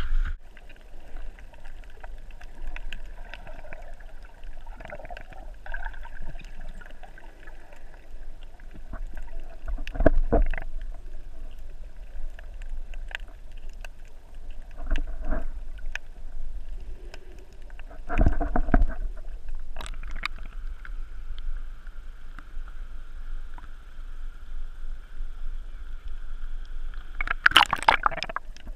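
Muffled water sounds picked up by a camera held underwater beside a swimming snorkeler. A faint steady hum runs underneath, broken by a handful of short, louder splashy bursts, with a cluster near the end.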